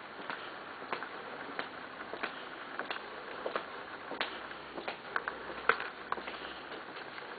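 Footsteps on a tiled floor, a light tap roughly every two-thirds of a second over a faint steady hiss, with one step louder about three-quarters of the way through.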